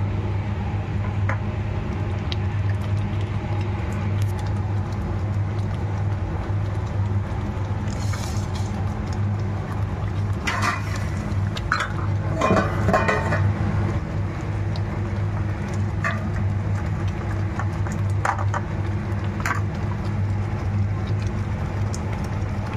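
A metal spoon stirring thick masala gravy in a steel kadhai, scraping against the pan now and then, with a cluster of louder scrapes around the middle. A steady low hum runs underneath.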